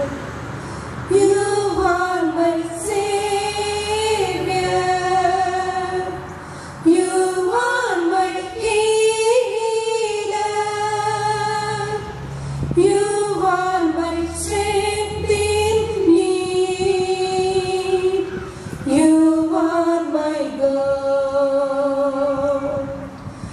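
A woman singing a slow hymn in long held notes with vibrato, phrase after phrase, over a soft low accompaniment.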